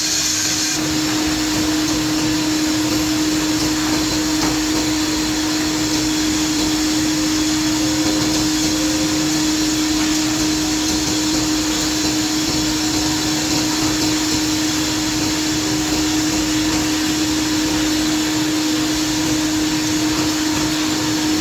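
Woodmaster WM-3A CNC milling and drilling machine running steadily: a constant rushing noise with a steady hum. About a second in, a high hiss stops and the hum comes in.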